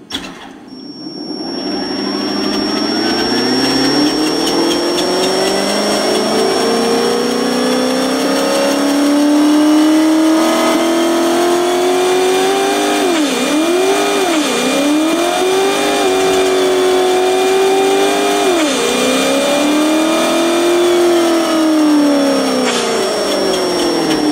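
Synthetic diesel engine sound from an ESS Dual sound module's speakers in an RC truck, revving with the throttle. The pitch climbs steadily for about twelve seconds, holds high, and dips sharply twice, which are glitches the owner puts down to his old Spektrum radio. It then holds again, drops and swells once more, and falls away near the end.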